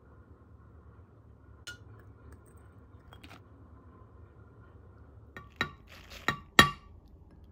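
Glass clinking against glass as a glass cup is tipped against the rim of a glass blender jar to pour ingredients in: a few faint clicks, then a quick run of sharp clinks near the end, the last the loudest.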